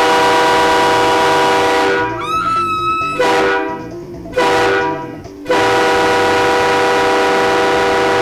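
Trigger Horns El Jefe 200 psi three-trumpet stacked train horn blowing four blasts: a long one of about two seconds, two short ones, then a long one held past three seconds. Each blast is a steady chord of several tones that starts and cuts off sharply.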